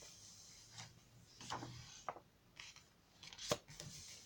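Paper pages of a handmade glue book being turned and handled: soft rustling and crinkling, with sharp page flicks, the loudest about three and a half seconds in.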